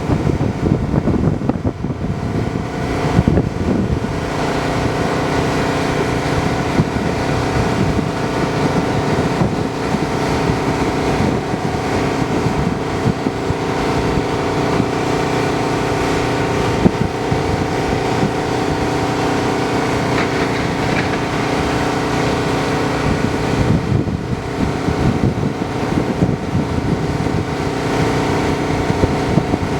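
Volvo EW160D wheeled excavator's diesel engine running steadily.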